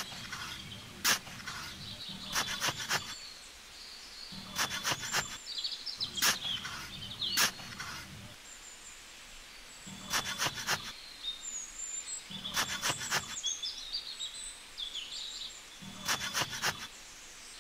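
Small metal trowel scraping and scooping damp sand out of a hole, in short bursts of quick strokes a second or two apart.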